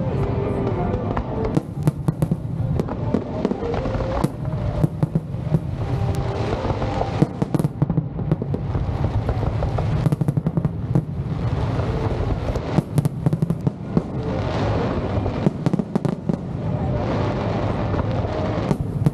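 Aerial fireworks bursting in quick succession: many sharp bangs and crackles over a constant low rumble, with music playing along.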